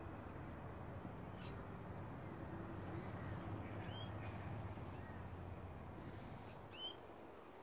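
Birds calling: a few short, sharp high-pitched calls, clearest about four and seven seconds in, over a steady low hum.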